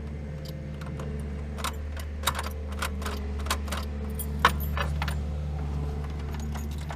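Car keys jangling and clicking as the key is turned back and forth in a Lada Granta's ignition lock, over a steady low electrical hum; the ignition will not switch off.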